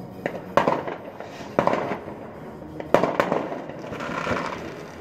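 Fireworks going off: several sharp bangs a second or so apart, each trailing off, with crackling in between.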